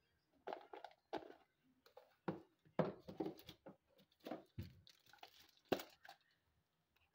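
Irregular short rustles, crinkles and knocks of kitchen items being handled while spices are readied, in a string of separate sounds that stop about six seconds in.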